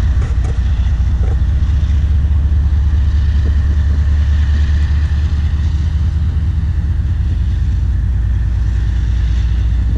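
Steady low rumble of distant diesel freight locomotives working a double-stack container train in a rail yard, with wind buffeting the microphone.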